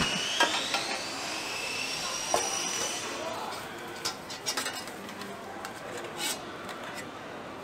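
A metal spoon clinking and scraping in a stainless-steel tray of dorayaki filling, with sharp clinks scattered through and a cluster of them around the middle. A faint high whine rises in pitch over the first three seconds.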